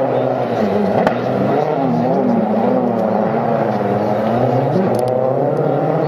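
Ford Focus WRC rally car's engine revving hard through the stage, its pitch rising and falling repeatedly as the driver works through the gears, with a couple of sharp clicks.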